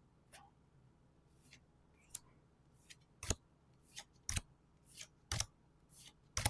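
Pokémon trading cards being handled: about ten short swishes and sharp taps as cards are slid and set down, the taps louder in the second half.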